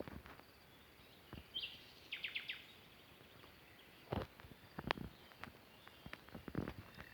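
Quiet village evening ambience: a bird gives a short chirp and a quick run of four notes about two seconds in, and from about four seconds in a few irregular steps knock on hard ground.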